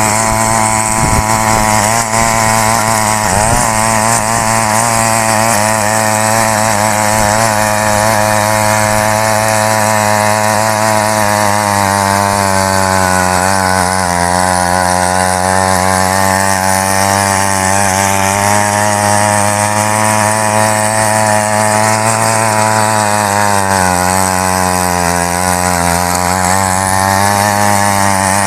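Small petrol engine of a mini weeder (rotary tiller) running at high speed under load while its tines churn dry soil. The engine pitch wavers continually as the load changes and sags briefly about three-quarters of the way through.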